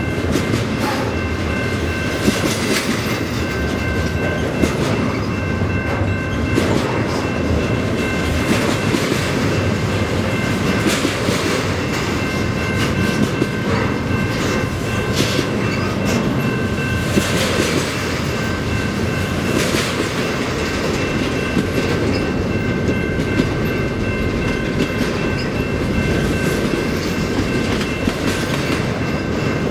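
Double-stack container well cars of a freight train rolling past close by at speed: a steady rumble of steel wheels on rail, with the clickety-clack of wheelsets over rail joints and a thin, steady high-pitched ring above it.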